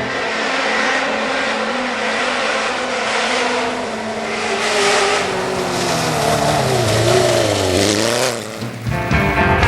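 ATV engine running under throttle, its pitch falling and rising again over a few seconds as it revs; it cuts off abruptly near the end.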